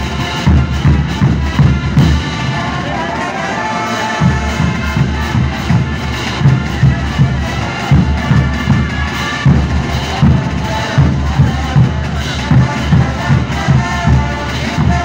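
Brass marching band playing, with sousaphones and other brass carrying the tune over a steady beat of bass drums. The drums drop out briefly and come back in about four seconds in.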